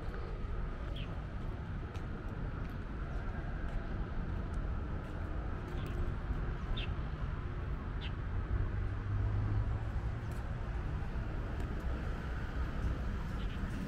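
Outdoor background of distant road traffic, a steady low rumble, with a few short bird chirps. A low engine hum swells briefly just past the middle.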